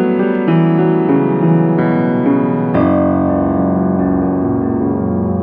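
Solo piano introduction: several notes played over chords, then a chord struck about halfway through that is held and rings on, slowly fading.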